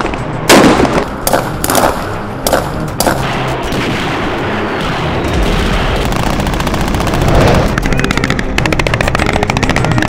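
Rifle gunfire: several sharp single shots in the first few seconds, then a rapid string of automatic fire near the end.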